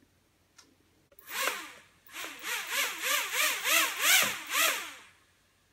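Cheerson CX-30S quadcopter's motors and propellers spinning up briefly, then whining up and down in quick pulses, the pitch rising and falling about two to three times a second, before stopping about a second before the end.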